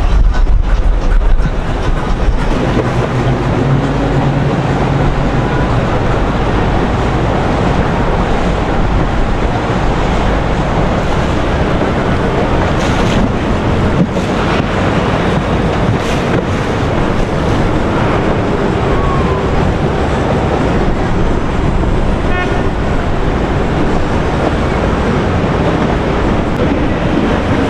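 Boat engines running over rushing water, with wind buffeting the microphone: a steady, loud wash of noise.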